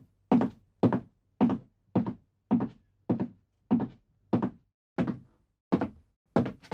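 Footsteps on a wooden floor at a steady walking pace, a little under two steps a second, each step a hollow heel-then-toe thud; about eleven steps, the last near the end.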